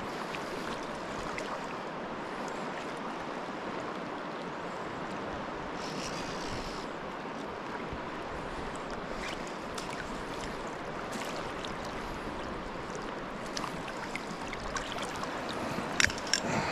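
Steady rush of a flowing river's current, with a few short sharp ticks near the end.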